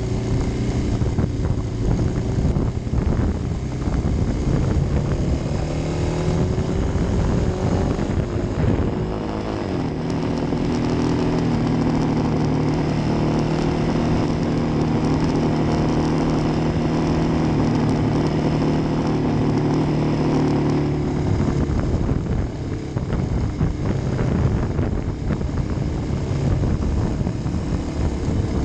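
Kawasaki D-Tracker's single-cylinder four-stroke engine running under way. The pitch shifts up and down with throttle and gear changes over the first several seconds, then holds steady from about ten seconds to about twenty, when it turns uneven as the throttle eases.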